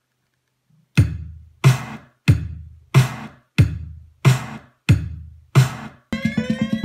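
Teenage Engineering OP-1 drum sampler played from its keys: after a second of silence, eight evenly spaced drum hits, about one and a half a second, each a heavy low thump with a crisp top that dies away quickly. Near the end a rapid roll of hits starts, rising in pitch.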